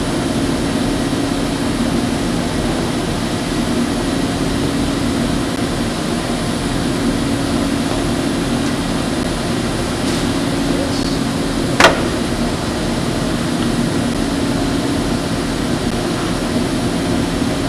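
Steady machine hum from a Unimate Puma 760 robot work cell running its assembly program, with one sharp click about twelve seconds in.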